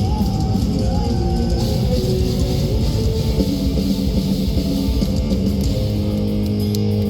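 Live progressive death metal band playing: distorted guitars with a melodic lead line over a dense, fast rhythm section. About six seconds in, the band settles onto a long held low chord.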